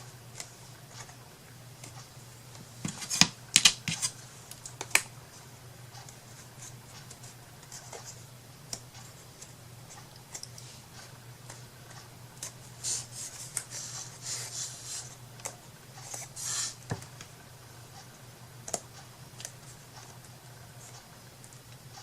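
Hands working on paper and small wooden craft pieces: a few sharp clicks and taps about three to five seconds in, then several seconds of scratchy rustling and snipping, over a steady low hum.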